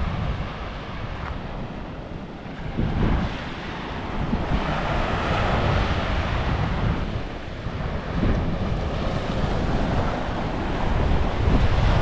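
Surf breaking and washing up a beach, with a wave's wash swelling up about halfway through, and wind buffeting the microphone with a low rumble.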